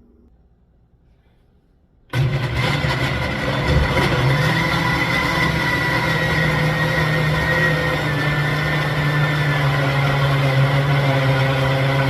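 Countertop blender switched on about two seconds in, its motor running steadily as it blends pineapple, cucumber and ginger in water. The motor's pitch climbs a little in its first couple of seconds as it comes up to speed, then holds.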